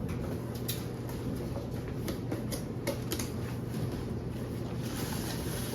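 Parts packaging being handled: scattered rustles and light clicks of boxes and wrapping being moved, over a steady low hum.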